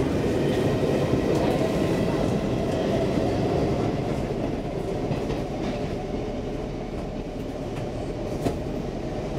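Stockholm metro C14 train running through a tunnel, heard from inside the car: a steady rumble of wheels on rails, with one sharp click near the end.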